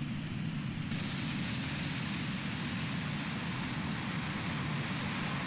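Steady jet engine noise from A-4 Skyhawk attack jets in low-level flight, a constant rushing drone that turns slightly brighter about a second in.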